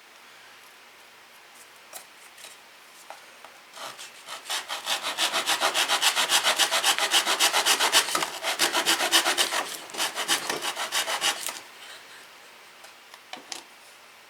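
Rapid back-and-forth rasping strokes of a hand tool working a blade or wood, about five strokes a second, starting about four seconds in and stopping a little before the end. A few faint knocks come before and after.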